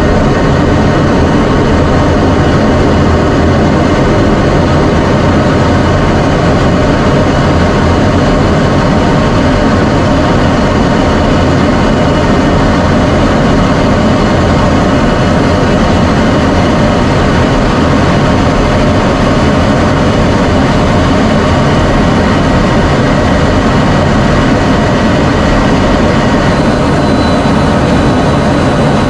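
F-16 Fighting Falcon's jet engine and rushing air heard from inside the cockpit, a loud, steady noise with a few faint steady tones over it.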